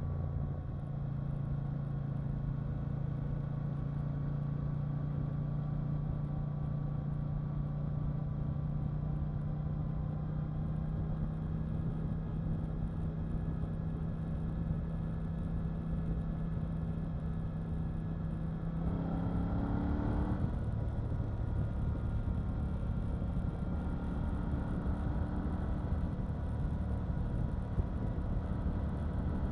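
KTM 890 Duke R's parallel-twin engine running at steady revs under way, with a slow slight rise in pitch. About two-thirds of the way through the revs climb quickly, then settle into steady running again, a little louder.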